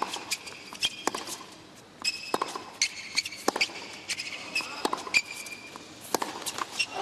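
Tennis rally on a hard court: racquets striking the ball and the ball bouncing, sharp knocks coming every half second to a second or so. Between the knocks are short high squeaks of players' shoes on the court surface.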